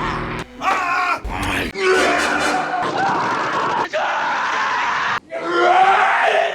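A man's guttural groans, grunts and yells of pain and strain, one short film clip after another with abrupt cuts between them.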